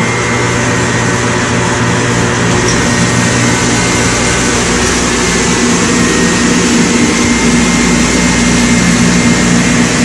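CDL La Fendeuse reverse osmosis machine running just after start-up, its high-pressure pump and motor making a loud, steady hum while it concentrates maple sap. The low hum grows stronger about three seconds in.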